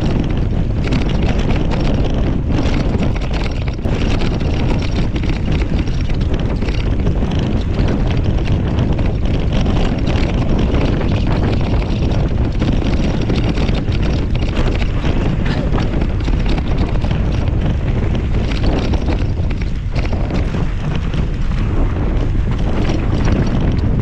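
Wind rushing over the camera microphone while riding a mountain bike fast down a dirt singletrack, with tyre noise and small knocks and rattles from the bike over bumps.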